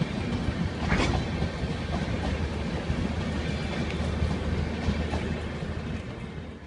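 LHB passenger coaches rolling along the track, a steady wheel rumble with a few sharp clicks over the rail joints.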